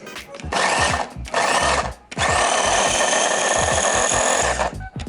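Electric Ninja food chopper motor whirring as it minces peeled garlic cloves: two short pulses, then a longer steady run of about two and a half seconds that stops shortly before the end.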